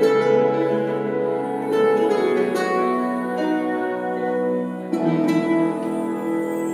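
Instrumental music: plucked string notes over long held chords, with sharp plucked accents around two seconds in and again near five seconds.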